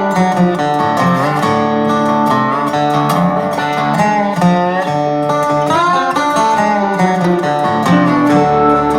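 Background music: country-style acoustic guitar with gliding, bent notes.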